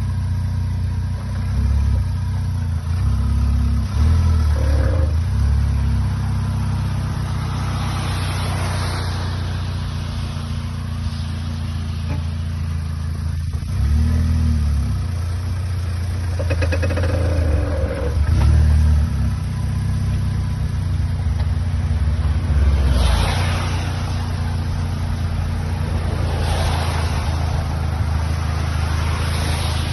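Vauxhall Astra J VXR's 2.0-litre turbocharged four-cylinder running as the car pulls away, with a creaking, knocking noise from the front wheels at moments, including a rapid run of knocks partway through. The knock comes when pulling off with the steering slightly turned; new outer CV joints did not cure it, and a gearbox oil change did.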